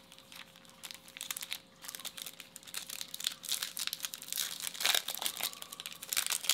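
Foil wrapper of a Topps Chrome baseball card pack crinkling and crackling as it is handled and torn open, with the loudest crackle about five seconds in.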